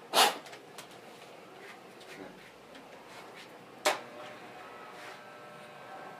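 A short, loud puff of breath blown onto a small hand-held object, then a single sharp clack about four seconds in.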